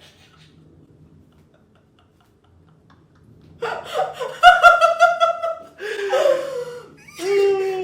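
Quiet, then about three and a half seconds in, sudden loud shrieking and laughter from two people, the reaction to a rubber-banded watermelon bursting.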